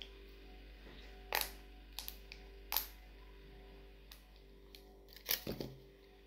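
Small hard objects, likely plastic slime tubs and lids, being handled: scattered sharp clicks and taps, then a quick cluster of knocks near the end.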